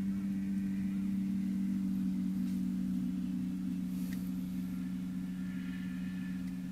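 A steady low hum with a second, higher tone above it, like a small motor or appliance running. There are a couple of faint clicks partway through.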